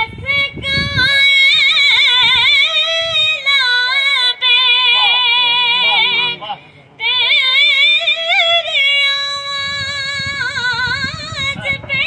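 A boy's high voice singing a devotional naat without instruments. He holds long notes with heavy, wavering vibrato, with a short break about two-thirds of the way through.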